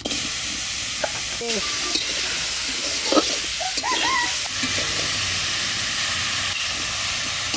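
Marinated goat-skin pieces sizzling in a hot kadai. A steady, loud sizzle starts suddenly as the meat goes in, with a few clicks of a metal spatula stirring it in the pan.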